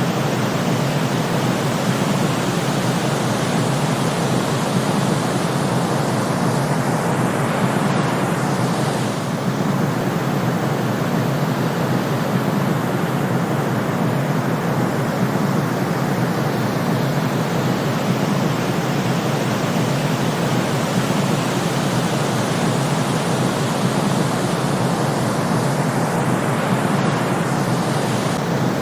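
Steady white noise for sleep: an even, unbroken rush, heavier in the low and middle range than in the treble.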